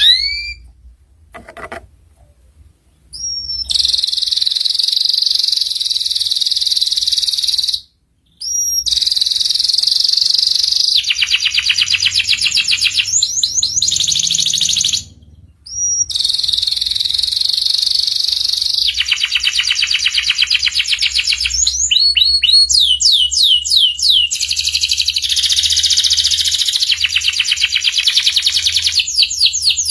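Domestic canary singing loud and fast: long rapid trills and rolls, broken by short pauses about 8 and 15 seconds in, with a run of quick rising whistled notes a little past 22 seconds.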